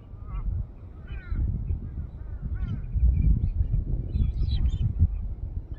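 Birds calling over a steady low rumble: a string of short, arching calls that come thicker and higher toward the end.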